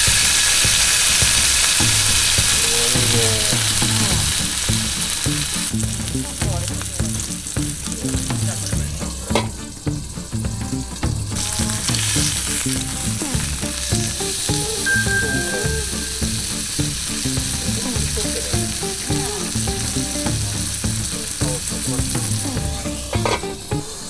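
Koji-marinated pork loin sizzling as it fries in a frying pan. The sizzle is loudest in the first few seconds after the meat goes in, then settles lower.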